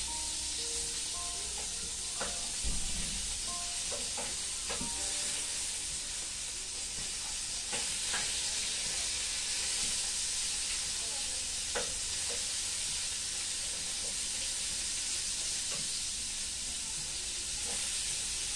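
Sausage frying in a pan: a steady sizzle, with an occasional clink and scrape of a utensil stirring it in the pan.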